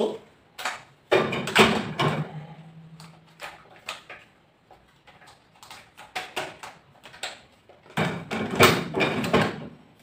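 Clatter of a dishwasher's wire rack and plastic cutlery basket being handled while it is loaded: two bursts of rattling, one about a second in and one near the end, with small knocks between.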